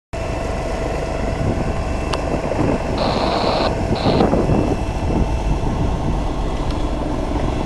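Steady engine rumble with wind buffeting the microphone, and two short high-pitched tones about three and four seconds in.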